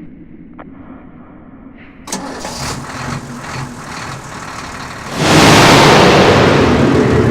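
A truck engine starts about two seconds in and runs, then becomes much louder and noisier about five seconds in and stays loud.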